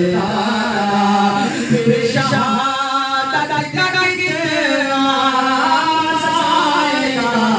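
A man singing a devotional naat unaccompanied into a microphone, in long drawn-out notes that slide up and down in pitch.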